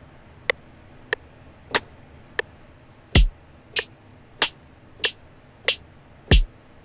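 A very basic programmed drum beat playing back in a DAW. Sharp hits come about every 0.6 s, with a deeper, louder thump about every three seconds.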